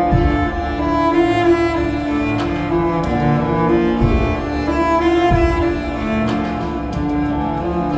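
Bowed cello playing slow, sustained notes, several sounding together and shifting every second or two.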